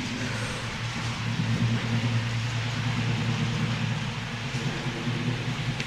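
HO-scale model train running on the layout: a steady electric hum with a rolling whir of wheels on track.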